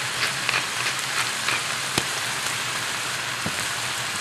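Eel, onion wedges and curry sauce sizzling in a hot pan: a steady frying hiss with scattered small pops and a sharp tick about halfway through.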